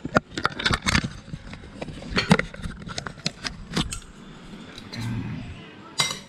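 Clicks, knocks and rattles of a camera being handled and set up on a wooden dining table, then a spoon and fork clinking against a ceramic plate near the end.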